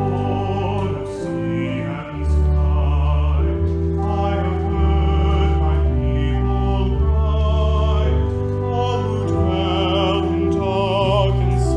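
Hymn music: a solo voice singing with vibrato over sustained, held accompaniment chords.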